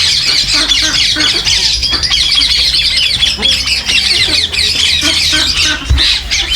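Many caged birds chirping and squawking at once, a dense continuous chatter of short high calls, over a low steady hum.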